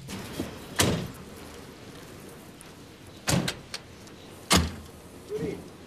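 Car doors of a Volkswagen Golf Mk2 shutting: three sharp thuds about a second, three seconds and four and a half seconds in, over steady outdoor background noise.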